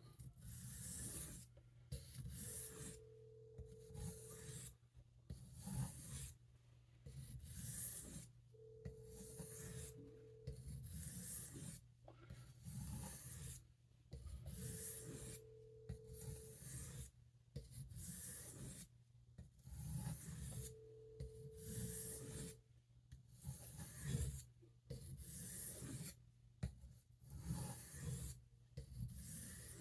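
Steel knife blade being stroked across a sharpening stone, a steady run of short, even scraping strokes, about one or two a second: light single-direction finishing strokes polishing a D2 steel edge.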